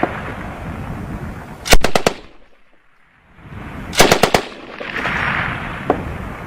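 M240B 7.62 mm machine gun firing two short bursts of about four rounds each, roughly two seconds apart, each followed by a rolling echo.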